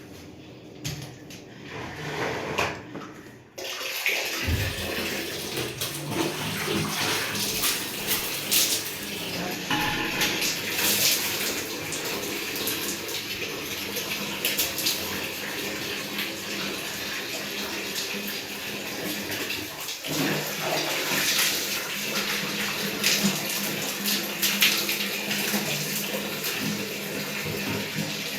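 Water running and splashing steadily, starting about three and a half seconds in after a few light knocks.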